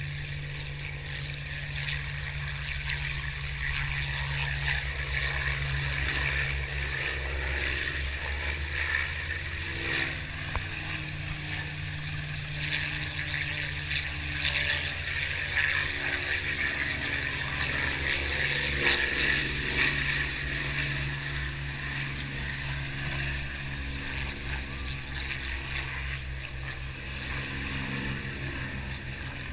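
A steady drone of piston-engined propeller aircraft running on the airfield. It swells somewhat in the middle, with a few slow rises and falls in pitch.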